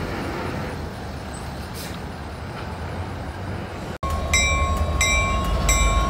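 Slow-rolling freight train rumbling past. About two-thirds through, it cuts to a louder close pass of an EMD GP60 diesel locomotive, its engine's deep pulsing rumble under a bell ringing in regular strokes.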